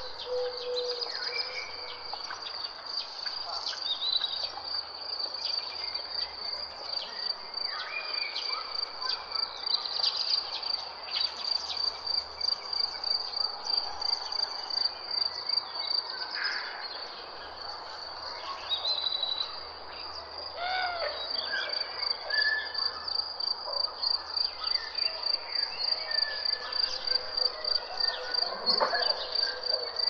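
Rainforest ambience: a steady, high-pitched insect trill, typical of a cricket, runs throughout, with scattered bird calls over it.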